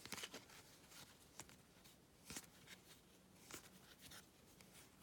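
Faint rustling and flicking of baseball cards handled and flipped through by hand: a string of soft, irregular clicks and slides.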